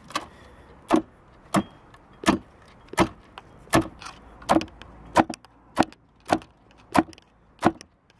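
Sharp clicks in a steady rhythm, about one and a half a second, with fainter ticks between, as the puller rigged on a Sea-Doo jet pump is tightened with a hand tool.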